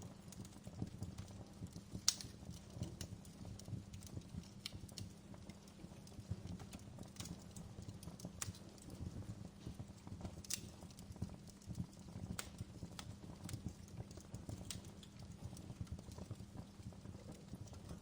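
Fire in a fireplace crackling: irregular sharp pops and snaps over a low, steady rumble of burning. The loudest pops come about two seconds in and again past the middle.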